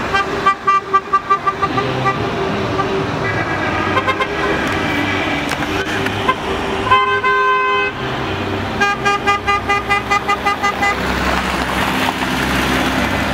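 A convoy of cars honking their horns as they drive past: rapid strings of short toots near the start and again later, a held horn and a loud blast of about a second partway through, over steady engine and tyre noise.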